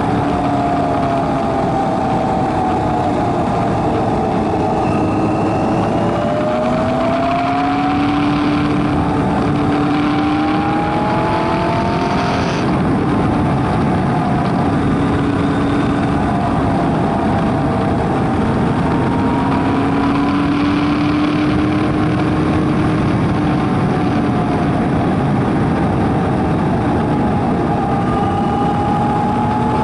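Kawasaki Versys 1000's inline-four engine running under way, its pitch slowly rising and falling with the throttle, over a steady rush of wind and road noise.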